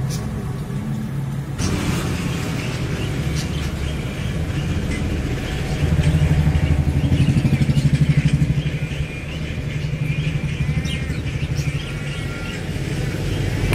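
A steady low mechanical drone like an engine running, swelling with a fast, even throb for a few seconds in the middle, with faint short chirps over it.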